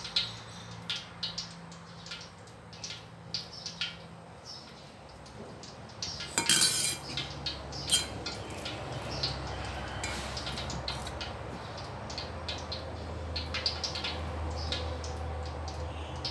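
A spoon clinking and scraping against a stainless-steel bowl as minced pork is scooped out and spread onto bread slices: a run of light clinks and scrapes, with a louder clatter about six and a half seconds in.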